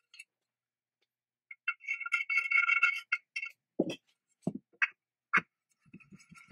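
Metal parts ringing and clinking, then a few knocks and sharp clicks as the band saw's polished metal wheel is handled and fitted onto its shaft on the cast-iron frame. Ringing and knocking pick up again near the end.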